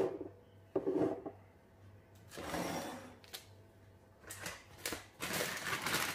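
Handling noises on a kitchen counter: a few knocks and a click as a glass mixing bowl is moved, then plastic packets of cottage cheese rustling as they are picked up near the end.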